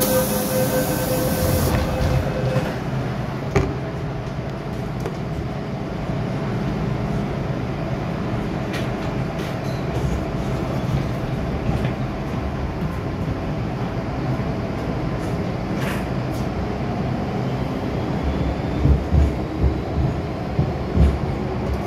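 MTR M-Train electric metro train heard from inside the carriage, pulling out of a station and running on. There is a brief hiss at the start, then a steady rumble of wheels and running gear with a few sharp clicks. Near the end comes a quick run of heavy thumps from the wheels.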